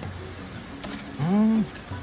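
A person's voice makes one drawn-out syllable, its pitch rising then falling, a little over halfway through. Crickets chirp steadily in the background.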